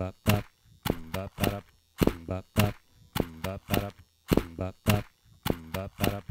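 Electric guitar played in short, sharp plucked notes in a repeating rhythm of about three a second. A low steady amplifier hum runs underneath.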